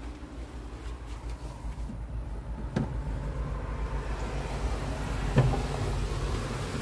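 Steady rain with a low rumble underneath, the hiss growing from about three seconds in. Two knocks are heard, a small one near three seconds and a louder one about five and a half seconds in.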